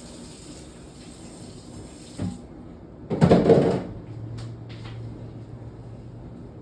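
Kitchen tap running, cut off about two seconds in. Then a knock and a loud clatter of handling in the kitchen about three seconds in, followed by a few light taps over a low steady hum.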